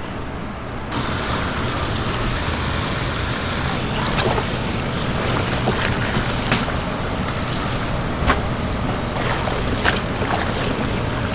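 Tap water running steadily into a steel basin of leafy greens, starting about a second in, while gloved hands swish and squeeze the leaves to rinse them, with a few sharper splashes.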